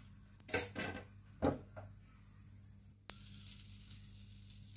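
Butter melting in a frying pan with a faint, even sizzle. A few short soft knocks come in the first two seconds, and a sharp click about three seconds in.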